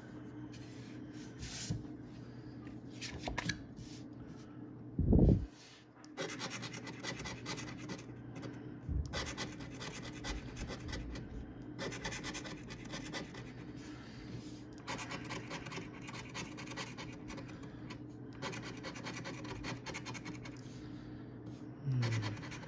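A coin scratching the coating off a paper scratch-off lottery ticket in quick rasping strokes, in spells of a couple of seconds with short pauses. A single loud thump about five seconds in, before the scratching begins.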